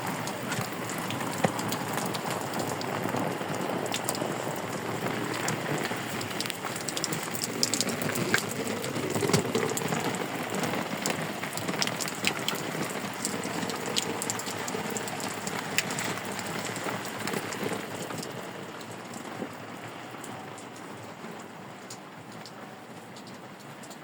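Steady rain falling, with many scattered drops ticking on a surface; it grows quieter over the last few seconds.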